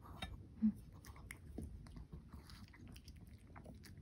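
Pomeranian biting and chewing a piece of beef, with a run of small quick clicks of its teeth and mouth.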